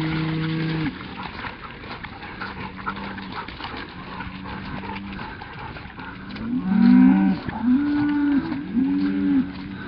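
Several Highland cattle lowing, overlapping calls of about a second each. Most are fainter in the middle, and a loud run of calls overlaps in the last three seconds.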